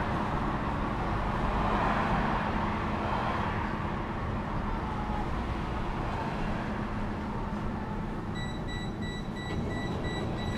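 Interior of a Vienna tram standing at a stop, its equipment humming steadily. About eight seconds in, a high electronic beep starts repeating rapidly: the tram's door-closing warning signal.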